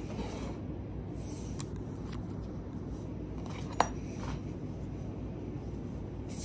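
A metal fork clinks once, sharply, against a ceramic bowl about two-thirds of the way through, with a few faint taps before it, over a steady low room hum.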